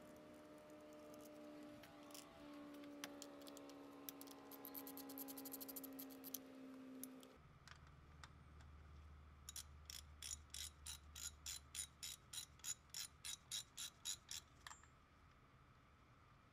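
Hand ratchet wrench loosening water pump bolts, a quick even run of about twenty sharp clicks in the second half. Before it, only a faint hum with slowly falling tones.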